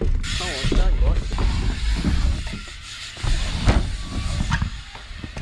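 BMX bikes riding a ramp line, with wind buffeting the camera microphone and several sharp knocks as tyres land on the ramps, the loudest about two-thirds of the way through.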